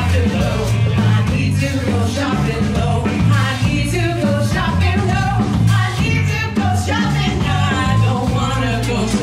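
A live band playing a song, with sung vocals over electric guitar, drum kit and saxophone.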